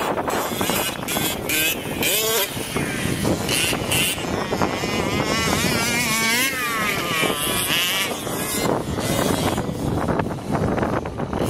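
Two-stroke petrol engines of large-scale RC cars revving and easing off as they drive, their pitch rising and falling over and over.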